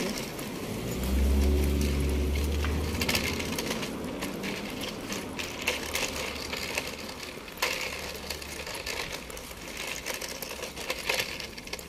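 A BMW saloon driving slowly past close by, its engine a low hum, loudest from about one to three seconds in and then fading. Footsteps on the pavement click irregularly throughout.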